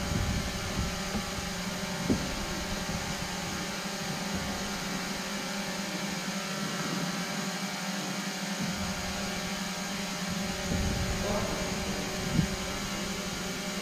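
A steady hum of a large sports hall, broken by a few short knocks; the loudest knock comes near the end.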